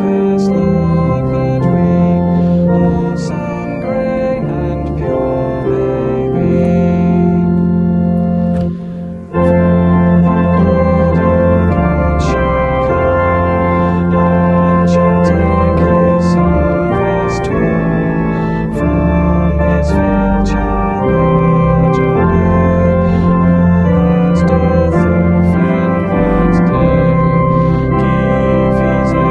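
Organ playing slow sustained chords, with a brief break about nine seconds in.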